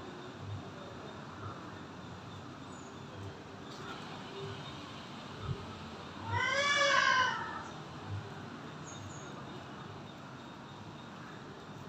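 A single drawn-out animal call, a little over a second long, rising and then falling in pitch, heard midway over a faint steady background.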